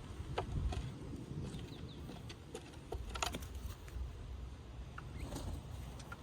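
Birds chirping in short, scattered calls, with a cluster of sharp chirps and clicks about three seconds in, over a steady low rumble.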